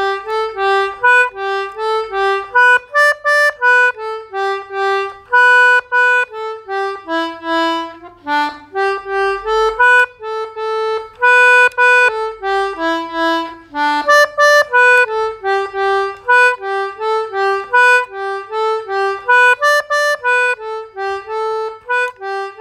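Background music: a quick melody of short separate notes on a single instrument.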